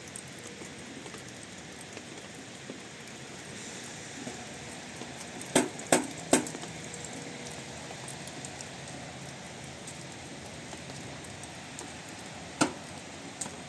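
Steady rain falling, with three sharp knocks in quick succession about five and a half seconds in and another near the end.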